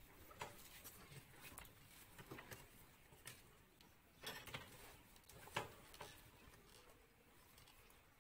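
Near silence, broken by a few faint, scattered knocks and rustles as a wheelchair user shifts in his wheelchair and handles the scooter seat beside him.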